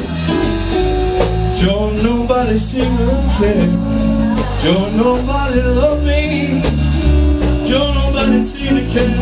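Live blues band playing: a man sings into a handheld microphone over electric and acoustic guitars and a drum kit keeping a steady beat.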